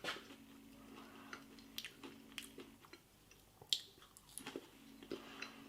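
A person chewing a mouthful of potato wedges: quiet, scattered mouth clicks and smacks.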